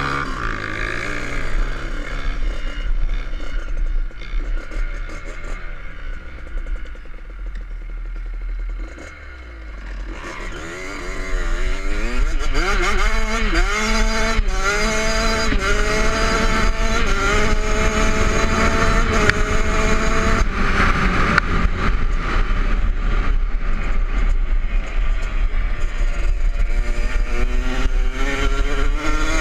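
Kawasaki KX65 single-cylinder two-stroke dirt bike engine heard from on the bike: running at lower revs at first, then louder from about ten seconds in, its pitch climbing and dropping back in steps as it is ridden through the gears, and climbing again near the end.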